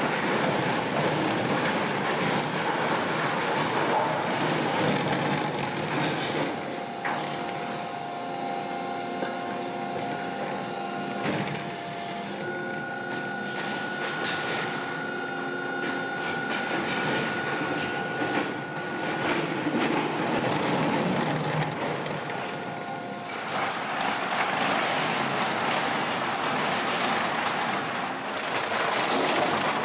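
Low-RPM rotary industrial wood grinder shredding lumber: a continuous, rough grinding crunch as the cutter rotor chews the wood into chips. Through the middle stretch the crunching lightens and the machine's steady drive hum and whine come to the front, before the heavy grinding returns near the end.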